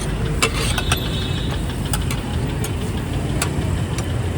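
Steady low rumble of engines from road traffic, with a few sharp clicks scattered through it.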